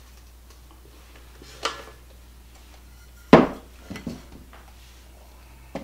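Wooden spoon knocking and scraping against a stainless steel mixing bowl while whipped topping is scooped out: four or five separate clunks, the loudest a little past halfway.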